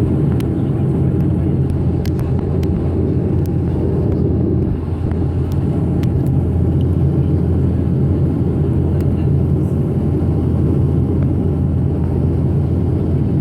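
Steady drone of a Dash 8 Q400's turboprop engines and propellers heard inside the passenger cabin: a low, even hum at a constant pitch.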